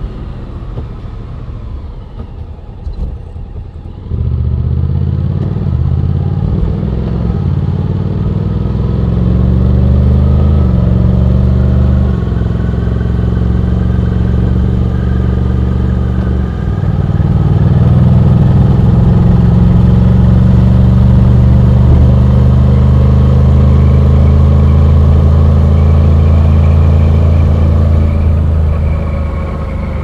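Honda X-ADV 750's parallel-twin engine, recorded by a helmet-mounted mic, running lightly for the first four seconds. It then opens up suddenly and accelerates hard. The engine note climbs and drops back at each upshift, twice, then holds high and steady at speed.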